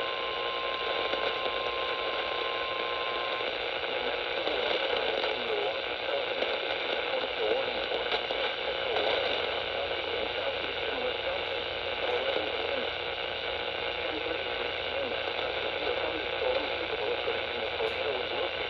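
NOAA Weather Radio's steady single-pitch warning alarm tone, near 1050 Hz, cuts off about three seconds in, leaving a weak, static-filled radio signal: a steady hiss with faint wavering sounds under it.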